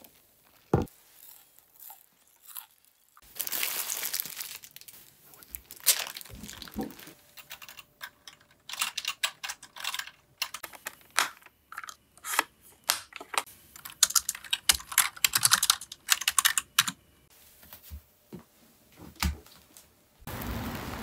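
Typing on a computer keyboard: quick runs of key clicks broken by short pauses. A steady hiss begins near the end.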